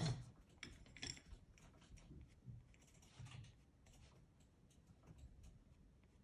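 Soft pastel working on textured pastel paper: a series of short, faint scratchy strokes and light taps, loudest near the start and about a second in, then sparser, softer rubbing.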